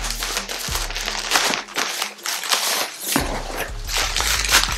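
Plastic packaging crinkling and rustling as a plastic mailer bag is pulled open and its plastic-wrapped contents are handled. Background music with a low bass line plays under it.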